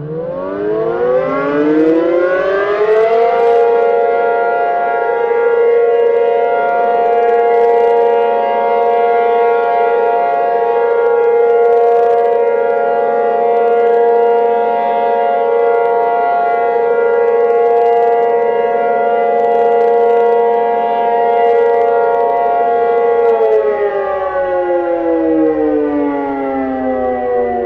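Tornado warning siren: its pitch rises over the first few seconds, holds one steady wail for about twenty seconds, then falls away near the end.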